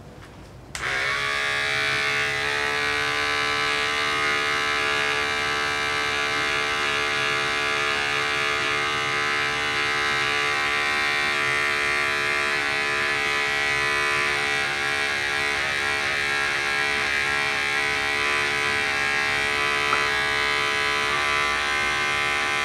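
Electric animal hair clippers switched on just under a second in and running steadily, clipping a dog's fur. The motor's hum holds one even pitch throughout.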